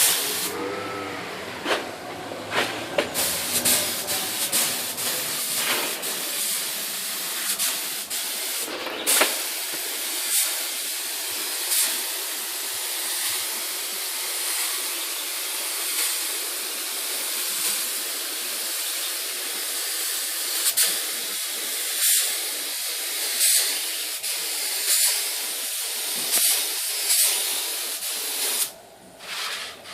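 Compressed-air paint spray gun spraying paint with a steady hiss. The hiss swells briefly about every second and a half in the second half, and cuts out for a moment about nine seconds in and again just before the end.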